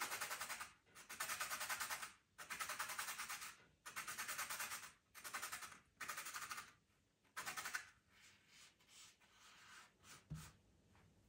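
A pastel pencil being sharpened: a run of rasping scrapes, each about a second long with short pauses between, about eight in all, fading to faint scratching in the last few seconds. A soft knock sounds near the end.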